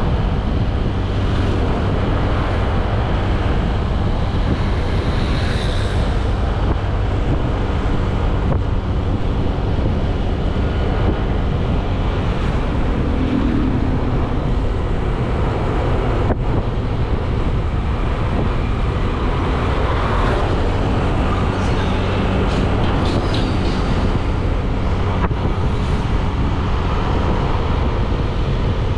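A motorcycle running steadily at cruising speed, its engine a constant drone under wind rushing over the microphone.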